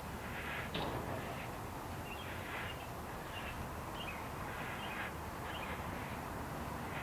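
Outdoor ambience: a steady low background rumble with scattered short chirps from birds.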